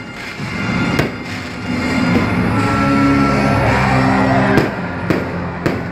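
Music for the fireworks show playing loudly, with firework shells bursting over it: one bang about a second in and three more close together near the end.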